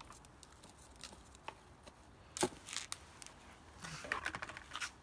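Hand trowel digging and scraping through compost mixed with dry leaves: scattered scrapes and rustles, a sharp scrape about two and a half seconds in and a quick run of crackling scrapes near the end.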